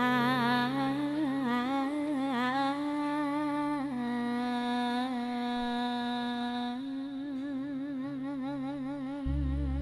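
Female singer's voice holding long, melismatic sung notes with a wide, regular vibrato, one steadier held note in the middle, over quiet sustained backing tones in the Javanese sinden style. The band's low notes come back in loudly near the end.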